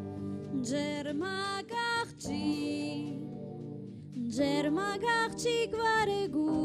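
An Armenian folk tune played live on clarinet: two ornamented melodic phrases over a steady sustained accompaniment.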